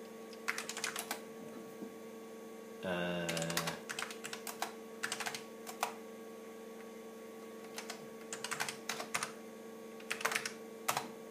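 Keystrokes on an IBM PC XT's Model F keyboard, clacking in four short bursts of typing over a steady hum.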